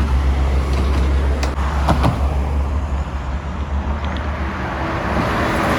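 Road traffic passing close by: a heavy vehicle's engine running with a steady low rumble, over tyre and road noise.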